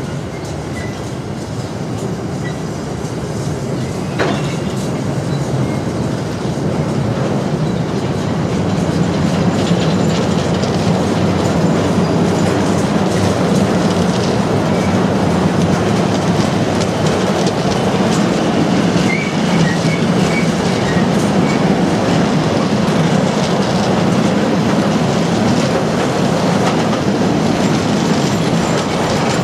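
Freight train of double-deck car-carrier wagons rolling past: a steady rumble of steel wheels on the rails, with one sharp click about four seconds in, growing louder about a quarter of the way through and holding there.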